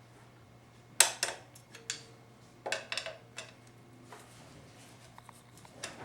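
Metal hand tools clinking and tapping against 4L60E transmission parts: a sharp clink about a second in, a cluster of clinks around three seconds, and a few more near the end.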